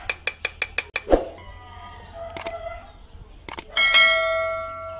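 Subscribe-button animation sound effect: a quick run of about seven mouse clicks, two more clicks later, then a bright notification bell chime nearly four seconds in that rings on and fades.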